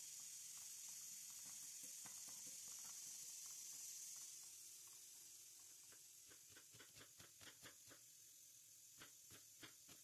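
A pot of water hissing steadily at the boil, fading out after about four seconds. Then a kitchen knife chopping an onion on a wooden cutting board: quick, even knocks in short runs.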